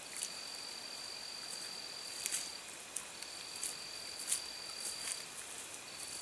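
Faint high-pitched insect trill, held in stretches of about two seconds with short breaks between, with scattered light clicks and ticks over it.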